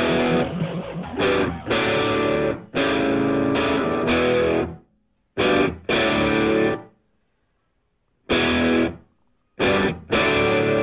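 Background music led by electric guitar, stopping abruptly into short silences several times.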